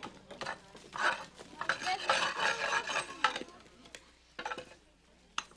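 A metal hand tool scraping and clinking against the clay and brick at the opening of a wood-fired kiln. The scraping is dense for a couple of seconds, then gives way to a few scattered knocks.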